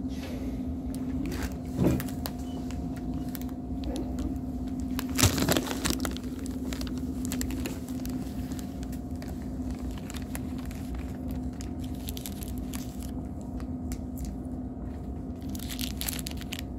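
A plastic snack packet crinkling and crunching in short bursts, loudest about two and five seconds in, over a steady low hum.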